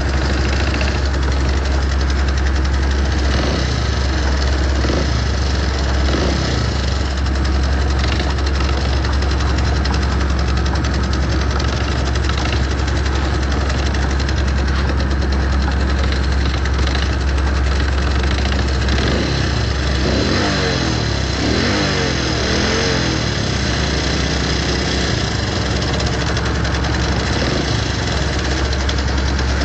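New Holland tracked combine harvester's diesel engine running steadily with a strong low hum.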